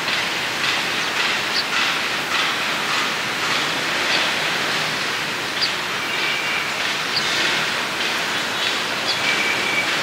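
Steady rushing outdoor background noise, even in level throughout, with faint short high chirps every second or so.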